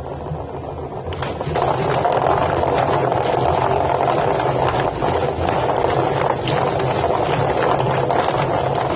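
Drum-type poultry plucking machine running: a steady motor hum under a loud rushing, rattling noise that gets louder about a second in.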